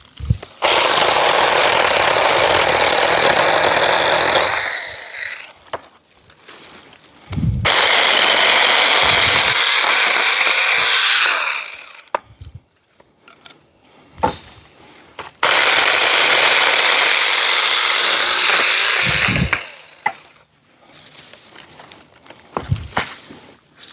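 Cordless electric 4-inch mini chainsaw on a pole saw running in three bursts of about four seconds each, cutting small branches and saplings, with quiet gaps and a few light clicks between the cuts.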